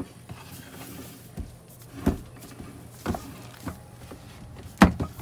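Heavy rubber-jacketed RV shore-power cord being pulled up through the floor port of a storage compartment and piled inside, making several dull thumps and knocks against the compartment, the loudest near the end.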